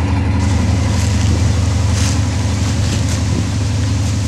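Train passing on the tracks: a loud, steady, low rumble.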